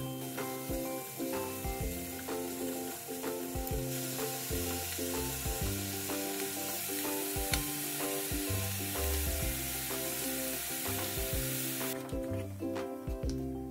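Bacon, king oyster mushrooms and shrimp sizzling in oil in a frying pan as they are stir-fried, under light background music. The sizzling grows louder about four seconds in and drops away sharply near the end.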